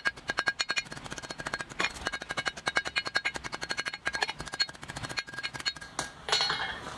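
Hand hammer striking a red-hot steel bar on a block anvil in a rapid run of blows, each with a short metallic ring. A single louder clank comes near the end.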